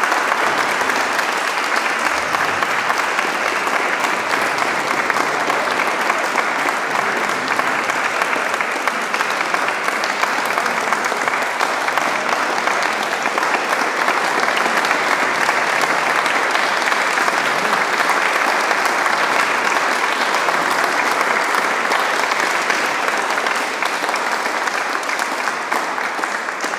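Audience applauding with steady, dense clapping that eases off near the end.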